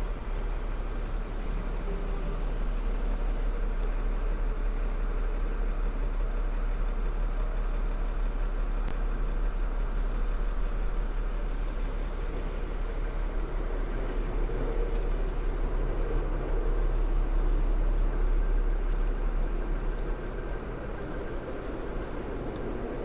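City street traffic: a steady rumble of passing vehicles that swells past the middle and eases a little near the end.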